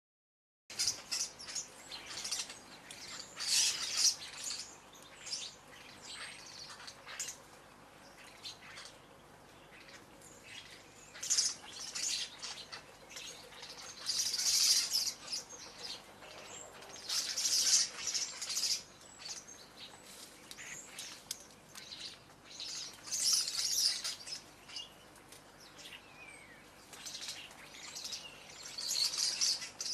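Small garden birds chirping and twittering in bursts every few seconds, the call bouts high-pitched and short.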